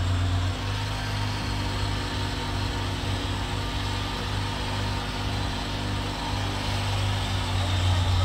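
A motor running steadily, a constant low engine drone with an even hum that wavers a little in strength.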